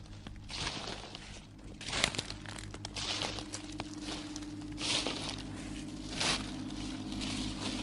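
Horror sound-effect soundscape: a steady low drone, with a held low tone coming in about two seconds in, under about five separate crunching, rustling hits spaced roughly a second and a half apart.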